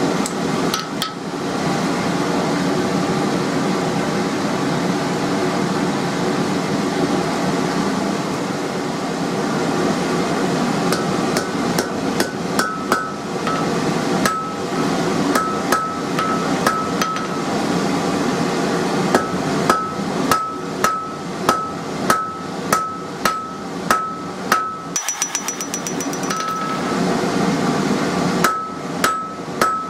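Hand hammer blows on red-hot mild steel over an anvil, each strike ringing with a clear metallic tone. The blows are sparse at first and come in a steady rhythm of about one and a half a second from around halfway through, over a continuous rushing noise.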